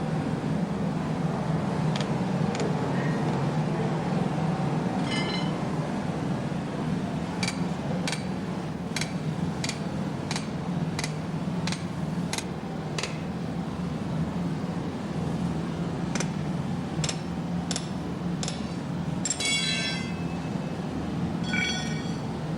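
Hammer blows ringing on steel: a run of strikes at about two a second, then sparser blows and a rattling clang near the end. A steady low hum runs underneath.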